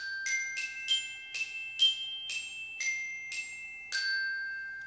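A short glockenspiel jingle: about ten struck, bell-like notes in a quick melody, the last note held and ringing out as it fades.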